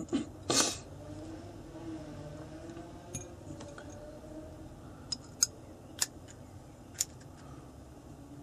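Light metal clicks and taps from small machined aluminium butt-pad plates and fittings being handled and fitted together by hand. There are a handful of sharp, short clicks, mostly in the second half.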